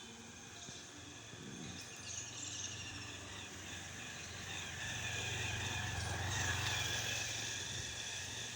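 Outdoor ambience of insects chirring steadily, with a low vehicle-like rumble that swells to a peak about two-thirds of the way through and then fades.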